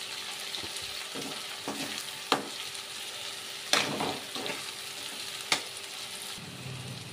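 Okra sizzling in oil in a metal kadai while a spatula stirs in chilli powder and salt. The steady sizzle is broken by a few sharp scrapes and knocks of the spatula against the pan.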